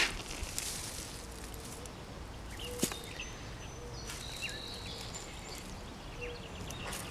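Quiet outdoor background with a few faint high bird chirps, and two sharp clicks and light rustling as garlic plants are handled and pulled from a straw-mulched bed.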